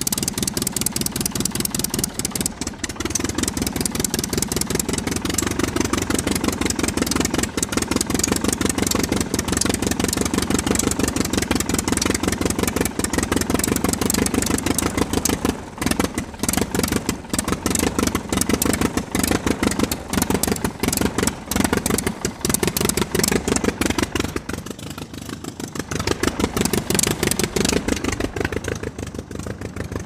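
Homemade remote-control model tractor running under its motor, a fast, steady, engine-like clatter, easing off briefly a few times.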